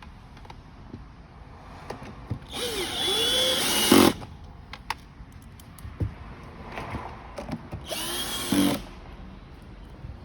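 Power drill driving screws into the car's plastic body in two runs: the first about a second and a half long, starting about two and a half seconds in, the second shorter, near the end. The motor's pitch rises and falls as it spins up and slows. Small clicks and knocks of parts being handled come between the runs.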